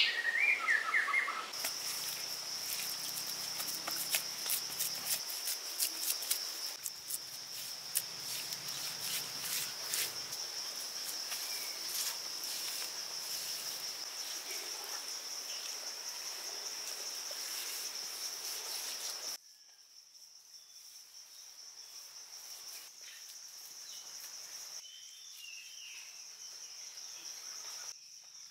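Forest insects trilling in one steady high-pitched tone, which gets quieter about two-thirds of the way through. Scattered clicks sound over the first third, and a short bird chirp comes at the very start.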